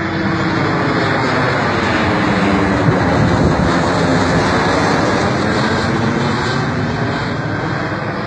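Jet airliner flying low overhead: steady engine noise that grows to its loudest around the middle as the plane passes above, then slowly fades as it flies away.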